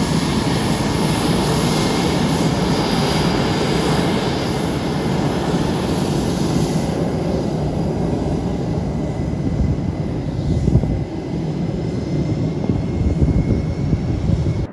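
Twin GE F414 turbofans of a two-seat Navy Super Hornet-family jet running at taxi power as it taxis past: a steady, loud rush with a thin high whine. About seven seconds in, the hiss in the rush thins as the jet turns away.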